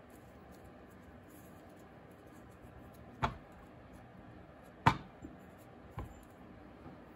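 Hands working a lump of air-dry clay on a tray, with a few sharp knocks against the tray about three, five and six seconds in, the one near five seconds the loudest.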